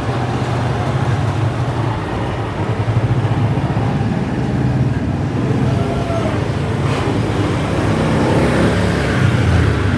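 Steady outdoor road traffic noise: the low hum of engines and tyres of passing vehicles.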